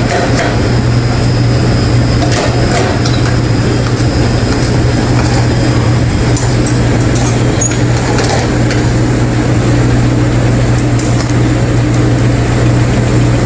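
A heavy engine or machine running steadily with a constant low hum, a few sharp knocks or clicks over it.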